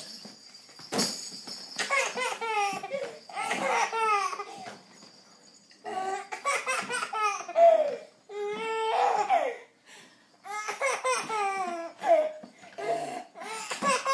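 Baby laughing in repeated bouts of high-pitched, pulsing giggles, with short pauses between them.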